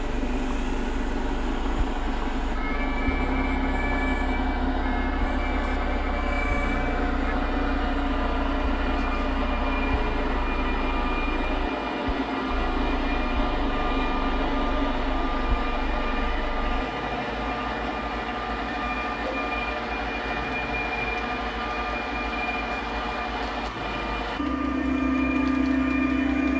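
Steady running hum of a train, with several held steady tones; a deeper drone sets in about 24 seconds in as a train passes in front.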